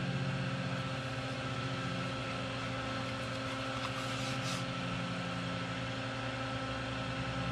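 Steady machine hum with a slight throb, as from an electric motor running. A brief soft hiss comes about four and a half seconds in.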